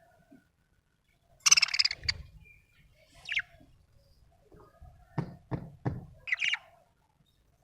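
Budgerigar chirping in short separate calls: a loud, harsh chirp about a second and a half in, a falling chirp, and another chirp near the end. Three quick knocks come a third of a second apart before the last chirp.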